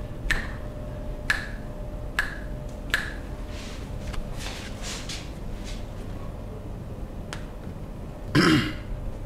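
A series of sharp clicks and pops from the barber's hands during the massage: four about a second apart, then softer ones and a single click later. Near the end comes a short, falling vocal grunt.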